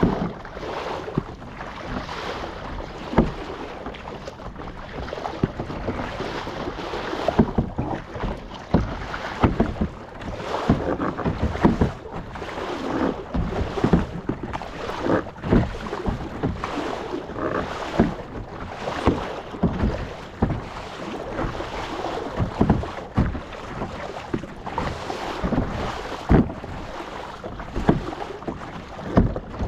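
Kayak paddles dipping into the sea, a splash with each stroke about every second or so, with water washing past the hull.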